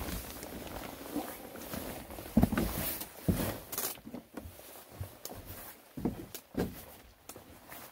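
Footsteps on loose rock and stones, a series of uneven crunching steps.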